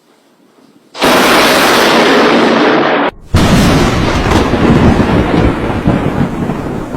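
Close lightning strike: the thunderclap comes suddenly about a second in as a loud crash, breaks off briefly after about two seconds, then a second loud crash rolls on as thunder that slowly fades.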